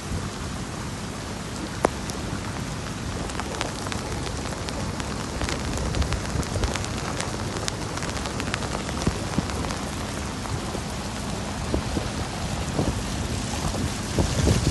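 Heavy rain mixed with small hail pouring down on pavement and on a jacket: a steady loud hiss scattered with many sharp ticks of pellets striking, growing busier in the second half.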